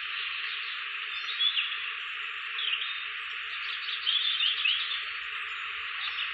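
A steady chorus of insects and frogs, with a few louder short chirping calls over it about a second and a half in, near three seconds, and in a cluster a little past four seconds.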